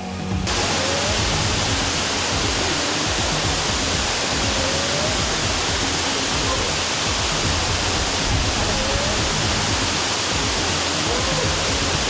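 Waterfall's falling water rushing steadily and loudly, heard from right inside the cascade, starting about half a second in.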